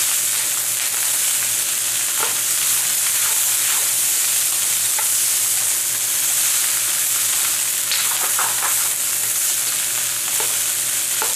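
Fried rice with shrimp, pineapple and cashews sizzling steadily in a hot wok while a spatula stirs and scrapes it, with a few sharper scrapes now and then.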